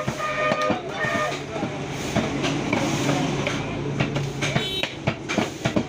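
Butcher's cleaver chopping beef on a wooden chopping block: irregular sharp chops and knocks over busy market background noise, with a low steady drone through the middle.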